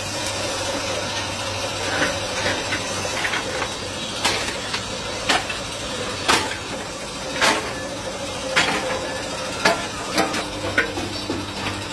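Metal scrap being tipped from a metal bowl into a large metal pan on a charcoal furnace: sharp metallic clanks and scrapes about once a second over a steady low hum.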